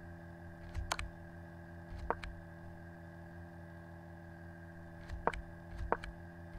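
A few sharp computer mouse clicks, spaced a second or more apart, over a steady electrical hum.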